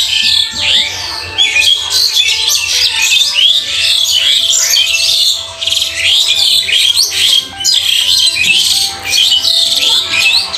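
Many small birds chirping and squawking together, with rapid overlapping calls that never pause.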